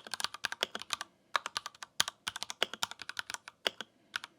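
Typing on an RK Royal Kludge RK61 Plus compact mechanical keyboard with silent linear Viridian switches and ABS double-shot keycaps: a fast run of key clacks with a couple of short pauses, thinning out and stopping near the end.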